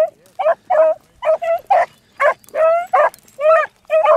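Beagles baying on a rabbit track in a rapid run of short bays, about three a second, with one longer drawn-out note in the middle.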